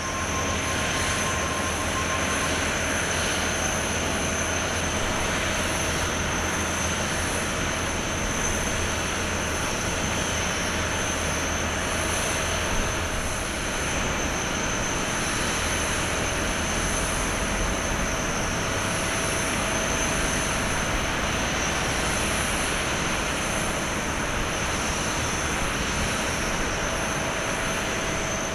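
Turbine noise from an Airbus A350-900 airliner during pushback: a steady rush with a high steady whine over it.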